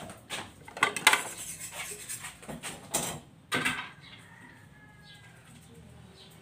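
Pots, pans and utensils clattering and clinking in a run of knocks and scrapes, dying down about four seconds in.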